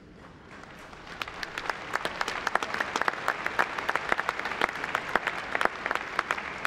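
Audience applauding, swelling over the first second or so into steady clapping with sharp single claps standing out.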